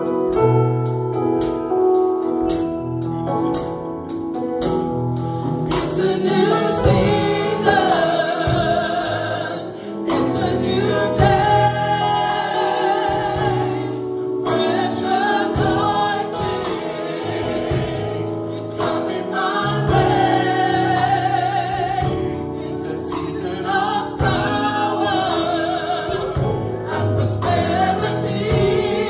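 Gospel praise band playing live: a group of men and women singing together in harmony over a bass line, keyboard, electric guitar and drum kit.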